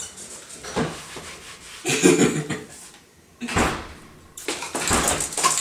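Knocks and bumps of a door being opened and shut, with the loudest thud about three and a half seconds in.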